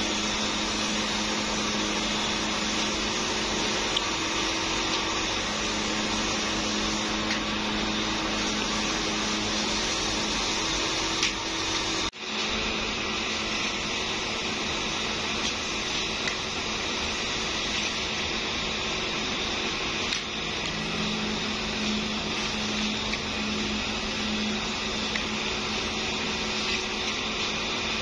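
A steady machine drone with a low hum, an electric motor running continuously. It drops out for a moment about twelve seconds in.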